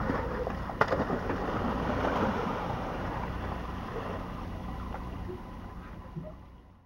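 Harbor water splashing and sloshing as a sea lion slides off the dock into the water and swims off, with wind on the microphone. There is one sharp knock about a second in, and the sound fades out at the end.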